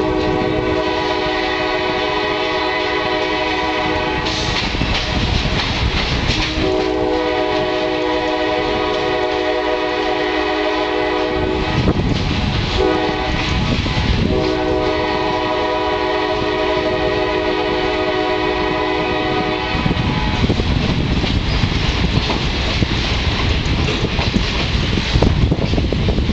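Diesel locomotive air horn sounding two long blasts, a short one and a final long one, the grade-crossing signal, over the steady rumble and rail clatter of the moving train.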